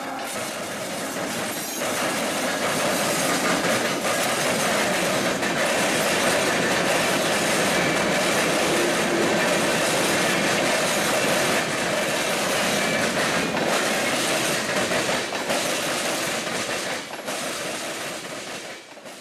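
Freight train cars rolling past close by: a steady rumble of wheels with clattering clicks as the covered hoppers and tank cars cross rail joints and switches, and a faint wheel squeal now and then. The sound builds over the first couple of seconds and eases off near the end.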